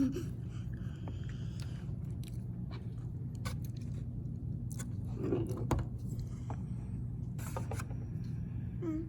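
A child eating, with soft chewing and scattered light clicks of a utensil on a plate, over a steady low hum. There is a brief murmur of voice about five seconds in.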